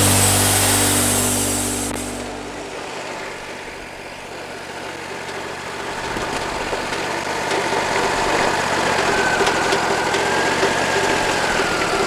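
Wood-Mizer LT40 Wide sawmill's engine running steadily between cuts, with the saw not in the wood. A louder sound drops away about two seconds in, and the engine then grows slowly louder toward the end.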